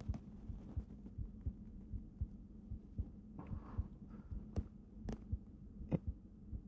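Soft, irregular low thumps close to the microphone, about three a second, over a steady low hum. Three sharp clicks come in the second half.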